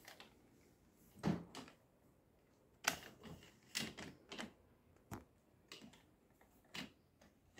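Aristocrat soft-sided trolley suitcase being wheeled and tipped about on a hard stone floor by its telescopic handle: a dozen or so irregular knocks and clicks from its wheels and handle, faint.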